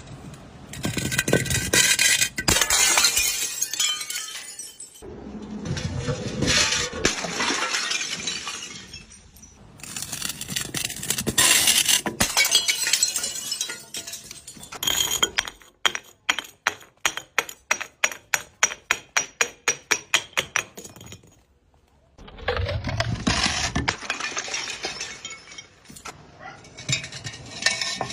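A series of crunching, breaking sounds in separate bursts of a few seconds each. In the middle there is a run of sharp, evenly spaced clicks, about four or five a second.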